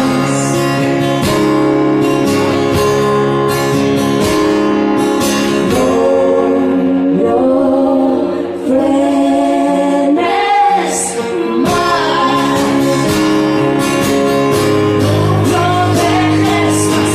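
A band playing a pop song live, with singing over guitar and other instruments.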